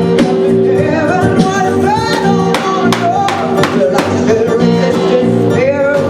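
Live band music: guitar chords with a singing voice over a steady percussive beat.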